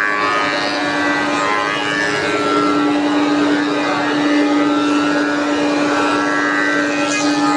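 Spindle moulder with a roller power feeder running steadily with a constant hum as a pine board is fed past the cutter.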